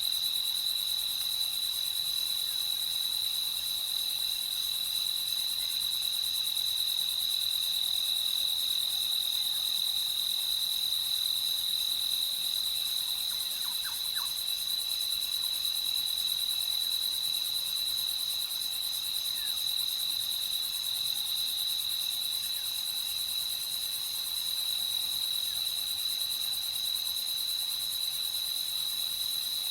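Crickets chirping in a night chorus: a steady, high-pitched trill over a constant high hiss.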